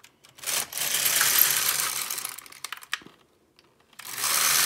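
Silver Reed LK150 mid-gauge knitting machine carriage pushed by hand across the needle bed, rattling over the needles, twice, once each way. These are the two rows of yellow in a two-colour tuck-stitch pattern, with a few clicks between the passes.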